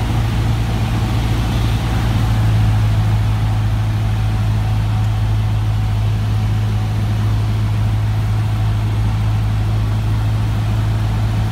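Cessna 150's Continental O-200 four-cylinder engine and propeller running steadily in flight, heard inside the cockpit as an even, low drone.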